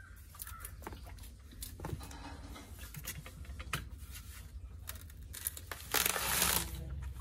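Coconut husk being torn off on a pointed iron husking spike: irregular fibrous tearing and crackling over a low steady rumble, with a louder stretch of tearing near the end.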